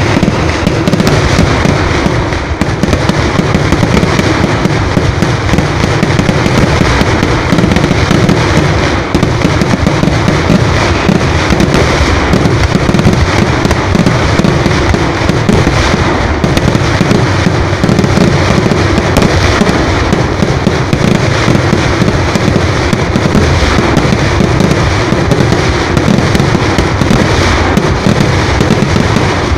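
A dense, loud barrage of fireworks going off, rapid cracks and bangs running together into one unbroken crackle with no pause.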